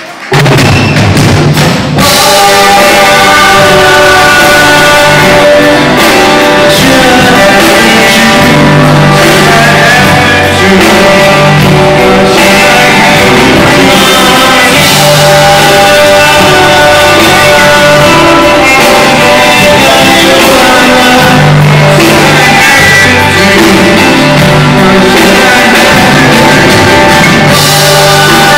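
Live rock band playing loud: drum kit, electric and acoustic guitars and bass guitar, with a lead vocal. The music comes in suddenly just after the start and the full band fills in at about two seconds.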